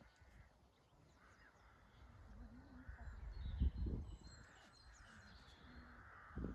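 Faint bird calls in the background, harsh caw-like calls repeating every second or so, with a low rumble about three and a half seconds in.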